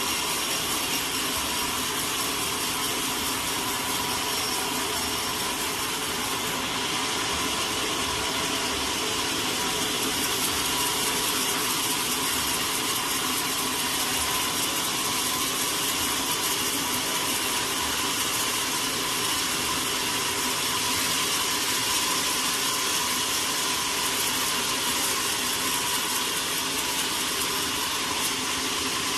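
Sawmill saw running steadily, a continuous machine noise with a few held tones and no break or change in level.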